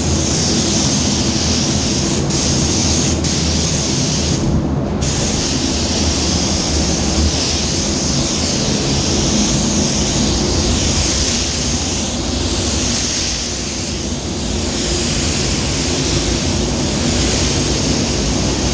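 Paint spray gun hissing steadily as a wet coat of waterborne basecoat goes on, the trigger let off briefly about four and a half seconds in, over the steady drone of the spray booth's fans.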